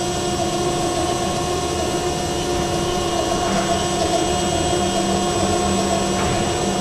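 CNC roll bending machine running through a bending step in automatic mode: a steady machine hum with several held tones, and a lower tone joining about three and a half seconds in.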